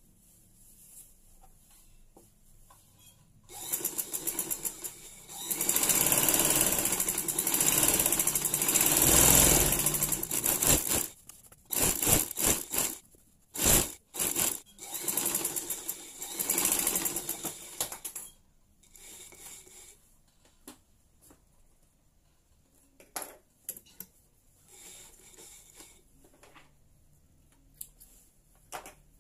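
Domestic sewing machine stitching fabric. It is quiet for the first few seconds, then runs for about seven seconds without stopping, then makes several stop-start runs of a second or two each, with only faint short sounds near the end.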